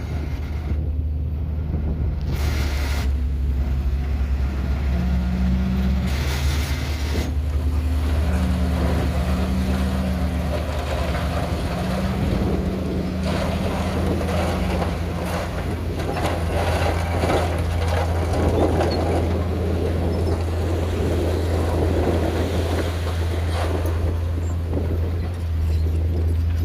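Heavy diesel engine of earthmoving machinery running steadily, its engine note rising and falling several times as it works under load.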